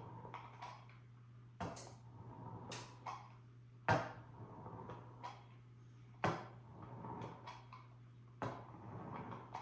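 Pizza cutter wheel clicking and tapping on a granite countertop as it is pressed down and rolled through a sheet of bread dough, a series of sharp clicks a second or two apart, the loudest about four seconds in, over a steady low hum.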